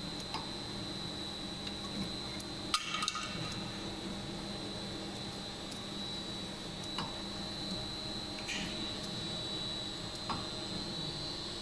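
Steady hum of running machinery with a high whine, broken by a few light metallic clinks and knocks, a short cluster of them about three seconds in and single ones later.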